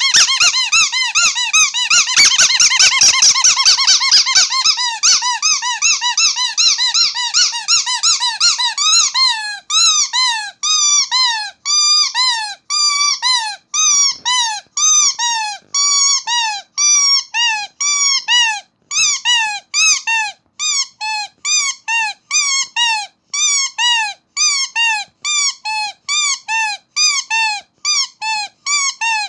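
Starfish squeaky toy squeezed over and over. The squeaks come quick and crowded for the first nine seconds or so, then slow to separate squeaks about two a second, each rising and then dropping in pitch.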